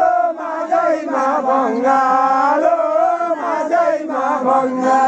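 Voices singing a Nepali khainjadi bhajan together in long, wavering held notes, chant-like, with khainjadi frame drums and their jingles played along.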